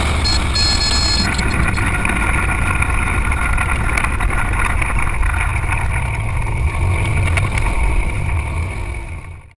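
Single-engine light aerobatic aircraft's engine and propeller running steadily at low power through the landing roll on grass, heard from inside the cockpit. A brief high tone sounds about half a second in. The sound fades out near the end.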